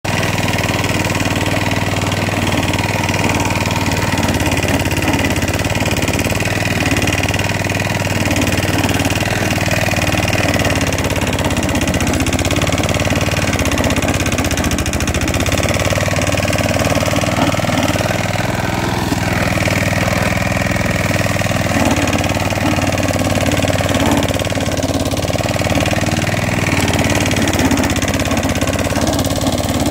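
Klippo petrol lawn mower engine running steadily under load while the mower is pushed across the lawn, its spring-tine moss blade raking moss out of the turf.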